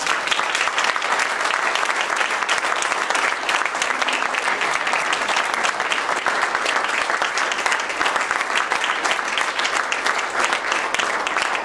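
A roomful of people applauding, a dense and steady round of clapping.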